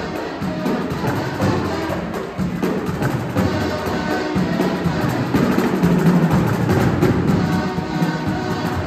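A juvenile jazz marching band playing live: massed kazoos carry a buzzing tune over snare and bass drums.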